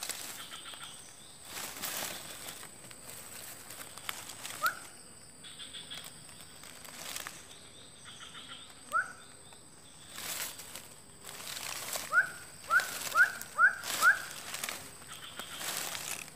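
Rustling and scraping as a wire-mesh fish trap is handled in dry leaf litter. Short sharp rising chirps cut through, one about four seconds in, another about nine seconds in, then five in quick succession near the end.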